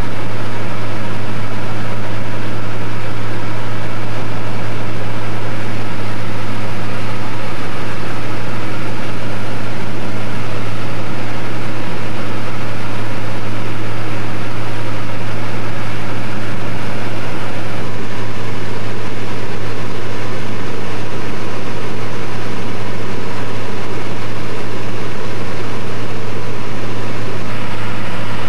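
Steady, loud drone of a light aircraft's engine and propeller in cruise, heard inside the cabin: a low hum under a constant wash of engine and airflow noise.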